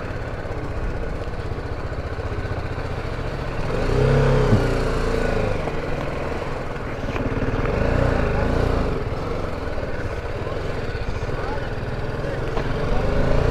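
BMW G310GS single-cylinder motorcycle engine running as the bike is ridden, its revs rising and falling a couple of times.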